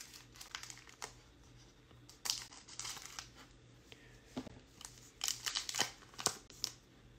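Plastic wrapper of a Topps Gypsy Queen hobby pack crinkling as it is cut open with scissors and peeled off the cards, in a run of short crackling bursts, the loudest a little past the middle.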